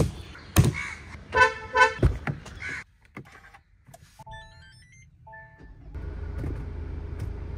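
A car with push-button start: a few clunks, two short horn beeps, then the dashboard's electronic start-up chime of stepping tones as the start button is pressed. The engine then settles into a steady low idle about six seconds in.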